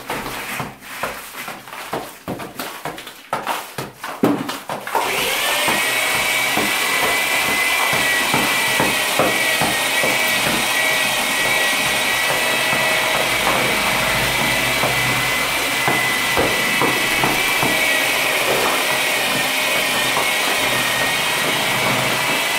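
Irregular knocks against the wall, then about five seconds in an electric drill starts and runs steadily into the wall.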